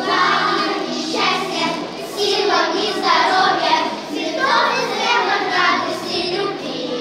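A group of schoolchildren singing a song together.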